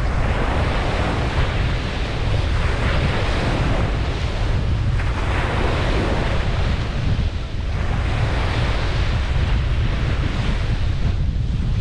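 Ocean surf washing onto a beach, swelling and fading every few seconds over a steady low rumble.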